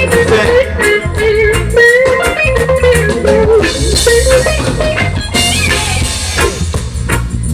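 A band playing: a guitar carries a wavering melody over bass guitar and a drum kit, with regular drum hits.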